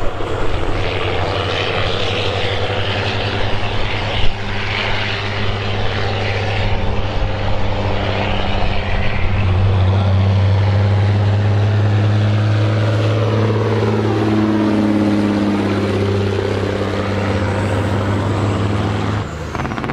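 Loaded semi truck's diesel engine running hard down the drag strip: a loud, steady low drone that grows louder about halfway through, with a sweeping shift in tone as the truck goes past. There is a single sharp crack about four seconds in, and the sound cuts off abruptly just before the end.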